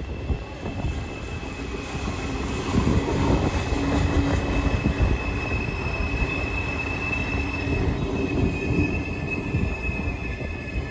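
A train running on the rails, its wheels rumbling, with a high, steady squeal of the wheels on the track; it gets louder about three seconds in.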